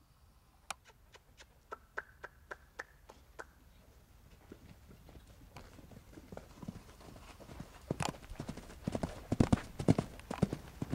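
Hoofbeats of a loose horse trotting and cantering over sand arena footing. They grow louder and heavier near the end as the horse comes close and passes by.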